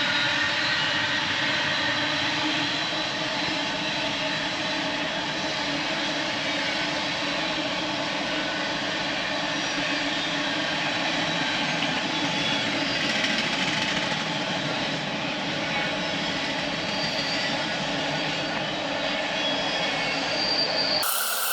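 Steady rumble of urban traffic, with the character of passing trains and vehicles, which changes abruptly near the end.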